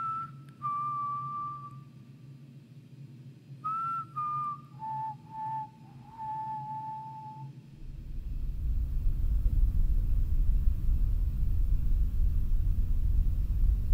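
A person whistling a few short, pure held notes, one after another with small slides between them. About eight seconds in the whistling stops and a deep, steady low rumble begins.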